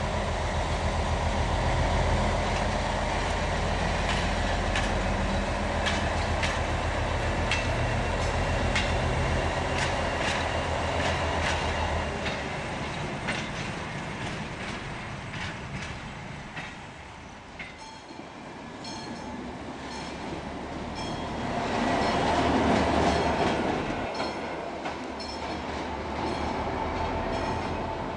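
Diesel shunting locomotive running as it moves a coach along the track, its low engine drone strong at first and fading about twelve seconds in, with a run of sharp clicks from the wheels over the rails. A broader rushing swell rises and dies away near the end.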